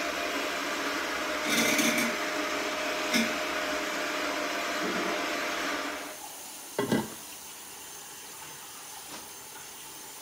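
Electric hand mixer running steadily as it whips hot potatoes into mashed potatoes. It stops about six seconds in, and a single clatter of dishes at the sink follows.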